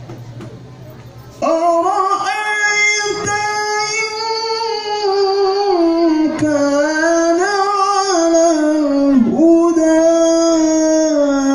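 Qur'an recitation in the melodic tilawah style: a single reciter's voice begins about a second and a half in and carries a long, held line that slides through ornamented turns.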